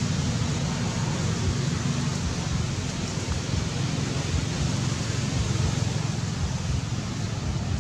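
Steady outdoor background noise: an even hiss with a low, fluttering rumble, without distinct events.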